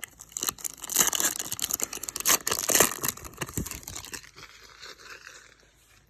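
A trading-card pack's wrapper being torn open and crinkled: a dense crackle for about four seconds, then a softer rustling.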